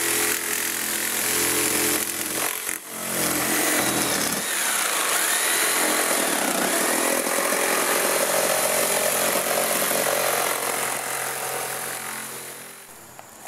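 Corded jigsaw running and cutting through a hollow-core wooden door, starting as a plunge cut with the saw tilted into the surface. The saw drops out briefly about three seconds in, then runs steadily, and dies down near the end as the cut is finished.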